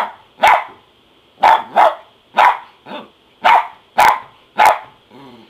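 Dachshund barking in alarm, a run of about nine short, sharp barks at roughly two a second, set off by the ceiling fan it is afraid of.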